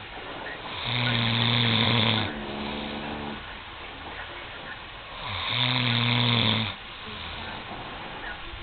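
A man snoring: two long, low-pitched snores about four and a half seconds apart, each followed by a softer breath out.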